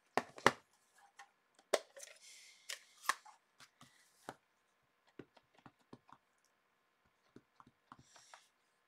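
Scattered clicks and taps of hard plastic as stamp ink pad cases are handled and opened and a clear acrylic stamp block is pressed onto an ink pad. The loudest clicks come in the first three seconds, with lighter, sparser taps after.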